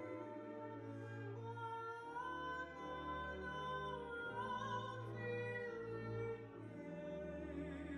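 Music: an operatic singing voice holding a slow melody with vibrato over sustained low bass notes.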